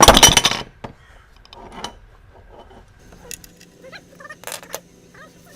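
A loud metallic clatter of tools, lasting about half a second at the start, then faint scattered clicks and taps from work on the oil drain plug with a wrench. Faint bird calls are heard near the end.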